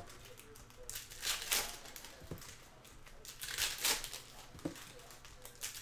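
Foil wrapper of a Panini NBA Hoops trading-card pack crinkling as it is handled and torn open, in two bursts about a second in and around four seconds in, with a couple of light taps between them.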